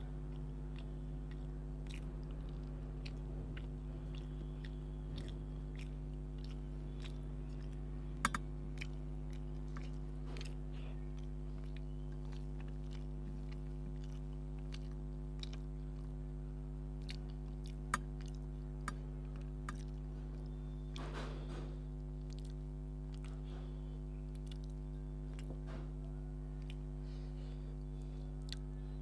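Close-miked chewing and mouth sounds of a man eating rice and fish curry by hand: scattered soft clicks and smacks, with two sharper clicks about 8 and 18 seconds in. A steady low electrical hum runs underneath.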